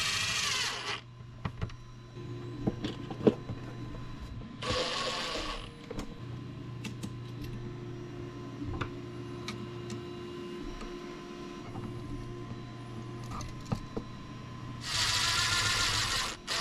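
Ryobi cordless drill driving screws in three short runs of about a second each: near the start, about five seconds in, and near the end. Clicks and knocks from handling the work come between the runs, over a faint steady hum.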